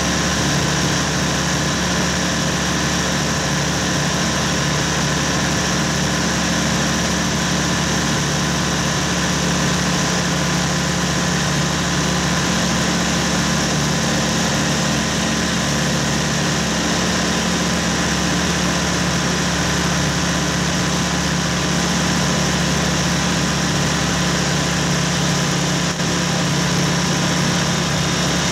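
Zlin Savage light aircraft's engine and propeller running steadily in flight, heard from inside the cockpit.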